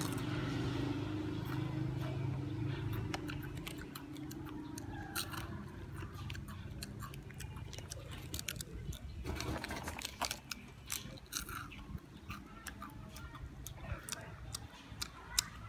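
Foil candy wrapper crinkling in the hands and a baby macaque crunching a crispy snack: scattered short clicks and crackles throughout. A low steady hum runs for about the first three seconds, then stops.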